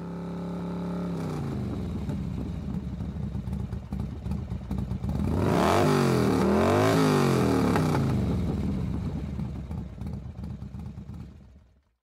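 A motorcycle engine running, then revving up and down in the middle, where it is loudest, and fading away near the end.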